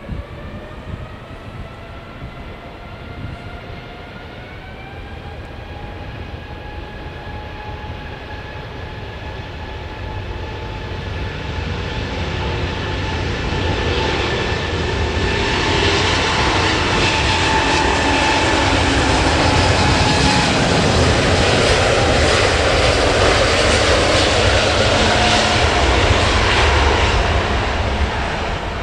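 Iberia Airbus A350's Rolls-Royce Trent XWB turbofans spooling up for takeoff: a rising whine of several tones over the first few seconds, then a steadily growing rush of full takeoff thrust. It is loudest over the second half and eases slightly near the end.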